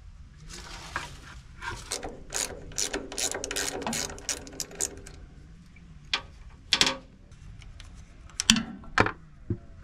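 Socket ratchet clicking in quick runs as it loosens the drain plug on the bottom of a diesel generator's oil filter canister. A few separate sharp clinks follow in the second half.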